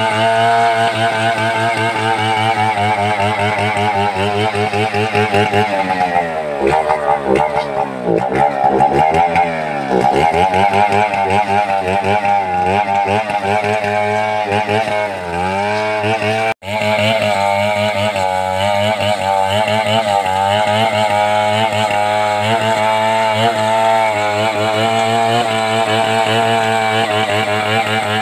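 Two-stroke chainsaw running at high revs while ripping a coconut trunk lengthwise into lumber. Its pitch dips and climbs again several times in the middle as the load changes. About two-thirds of the way through the sound drops out for an instant, then the saw runs steadily again.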